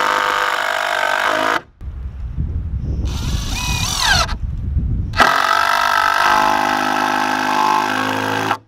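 Cordless drill driving screws into rough-cut oak boards: the motor and gearbox whine steadily for about a second and a half, a rougher, lower stretch follows, then another steady run of a few seconds that stops just before the end.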